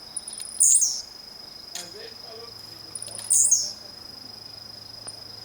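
Blue-black grassquit (tiziu) giving its short, high, buzzy call twice, about two and a half seconds apart: the call it makes with each display leap. A steady high insect trill runs underneath.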